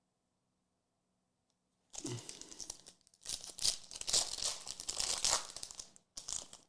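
A trading-card pack wrapper being torn open and crinkled, in three spells of rustling that start about two seconds in, the longest in the middle.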